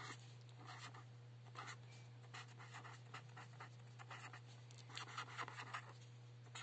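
Faint scratching of a felt-tip marker on paper in quick short strokes as a word is written letter by letter, then a wavy underline is drawn near the end, over a steady low hum.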